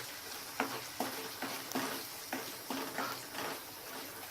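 A utensil stirring and scraping a masala of onions, garlic paste and spices frying in oil in a pan. A steady low sizzle runs under irregular scrapes, about two a second.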